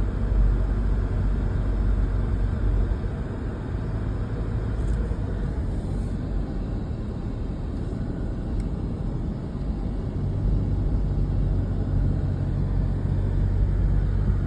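Steady low rumble of a car driving, heard from inside its cabin: engine and tyre road noise.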